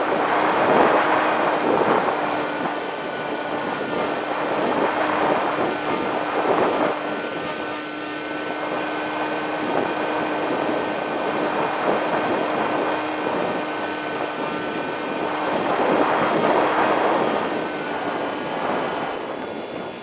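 Wind rushing and buffeting over the onboard camera's microphone of a Bixler RC plane in flight on a very windy day, with the steady whine of the plane's electric motor and propeller underneath.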